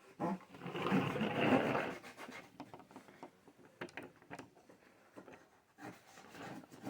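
Handling noise: a rubbing scrape lasting about a second and a half, then scattered light clicks.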